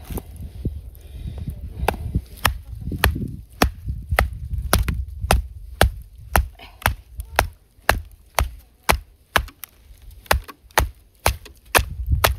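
Repeated sharp chopping strikes, about two a second and evenly spaced, over a low rumble of wind.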